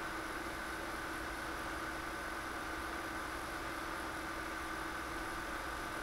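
Steady electrical and fan hum of a desktop computer setup, with a few constant whining tones over a low rumble.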